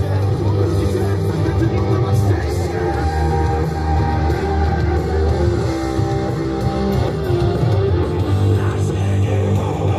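Rock music with guitar and a steady bass line, playing loud over the loudspeakers.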